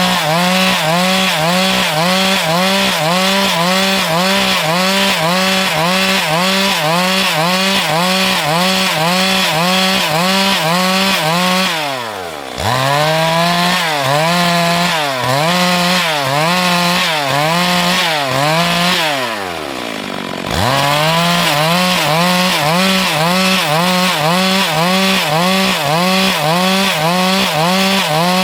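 Stihl MS 382 two-stroke chainsaw running at high revs through wood, its pitch wavering in a regular rhythm as the chain bites. Twice, about twelve and twenty seconds in, the throttle comes off and the engine drops nearly to idle before revving back up.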